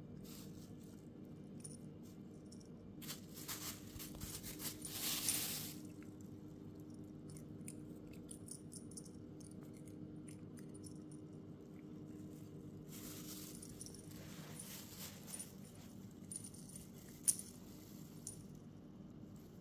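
Faint tinkling of a small pendant on a cat's collar as the cat moves, with two spells of rustling as it paws at a sheet on the floor, about three seconds in and again around thirteen seconds. A single sharp click near the end, over a steady low hum.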